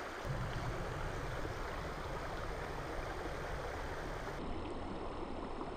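Steady rush of flowing stream water, with a low rumble underneath that comes in just after the start.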